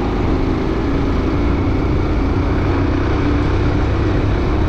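Steady road noise of a motorcycle ride: wind rushing over the microphone, with the bike's engine running underneath.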